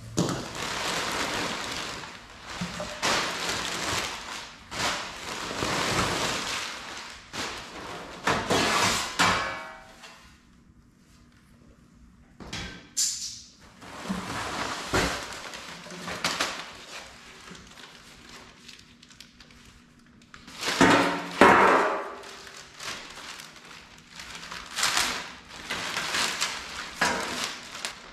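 Packing paper crumpling and rustling and cardboard box flaps being handled while sheet-metal car body parts are unpacked. The sound comes in stretches with a quiet pause about ten seconds in, and there is a louder clatter about two thirds of the way through.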